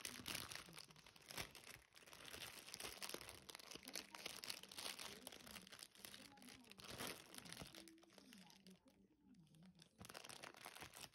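Plastic bread-roll wrapper crinkling and rustling as it is handled and opened, dense for most of the time and thinning out near the end.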